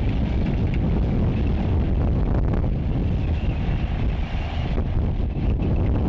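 Tractor-drawn ScanStone de-stoner working soil: a steady low rumble of engine and machinery, with wind buffeting the microphone.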